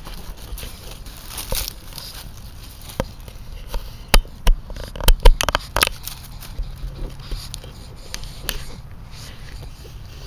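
Frogs calling at a small pond during spring mating, with a run of loud, sharp clicking calls about four seconds in.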